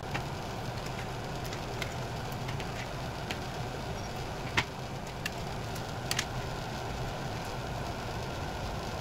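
Scattered small clicks and taps from a wire stripper and wires being handled, the sharpest about halfway through and a pair a little later, over a steady low hum.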